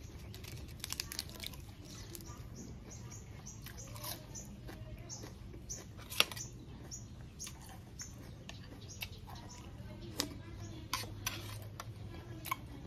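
Mouth sounds of a person eating a leaf-wrapped bite of raw beef with crunchy fresh vegetables: scattered wet clicks and soft crunches of chewing, the sharpest click about six seconds in, over a low steady hum.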